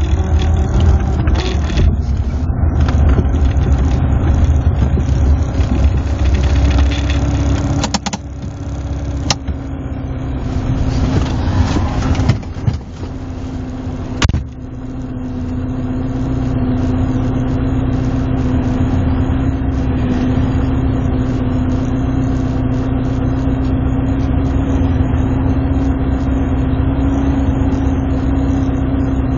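Moskvitch 412's four-cylinder engine, heard from inside the car, running hard under throttle while the car moves. About eight seconds in it drops off, two sharp clicks follow, and from about fifteen seconds it settles into a steady idle.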